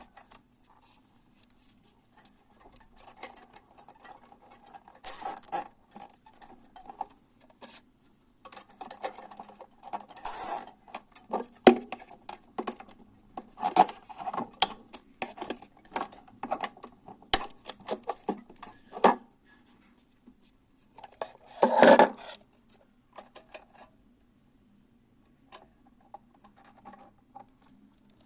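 Irregular clicks, clinks and scraping of small tools and parts being handled during a refrigerator repair. The sounds are busiest through the middle, with a louder cluster a little before the end, over a faint steady hum.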